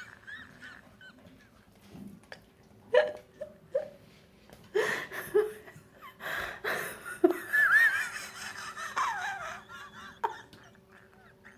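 A person laughing uncontrollably in separate fits with pauses between them, some high-pitched and wavering.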